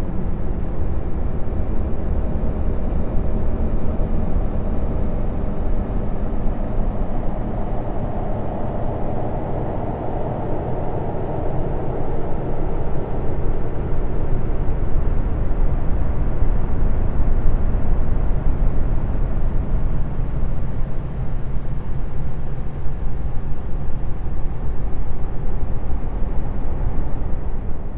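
Continuous low, rumbling space-ambience drone with a noisy, hissing texture, presented as the sound of Jupiter's moon Callisto; a higher, brighter layer swells up in the middle and then settles back.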